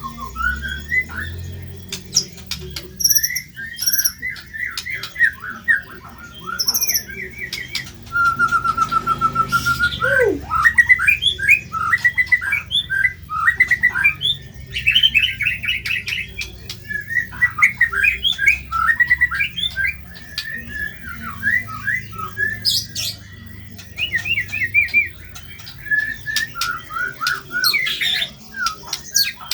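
White-rumped shama (murai batu) singing continuously: a varied run of quick whistled phrases and trills with harsh, rough-toned mimicked notes, including a steady rapid trill about a third of the way in that ends in a quick falling note.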